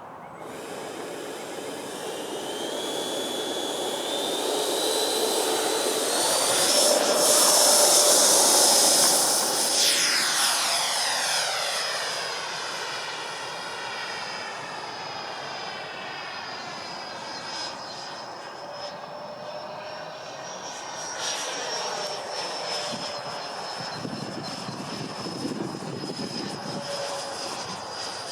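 Freewing MiG-29 model jet's twin 80 mm electric ducted fans, driven by brushless motors, whining in flight. The whine rises in pitch, then sweeps past loudest about eight seconds in with a rushing whoosh and settles into a steady high whine, with another close pass about 21 seconds in.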